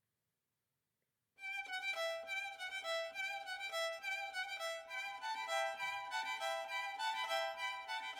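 Silence for about a second and a half, then instrumental music with a violin playing a melody of held notes over a string accompaniment.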